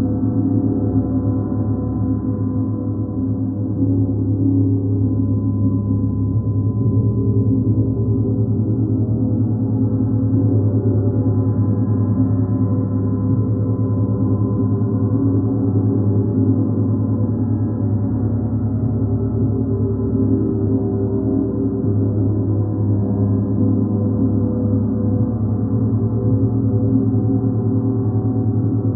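Large suspended gongs played continuously with soft felt mallets, building a dense, sustained wash of many overlapping low tones. It swells a little about four seconds in.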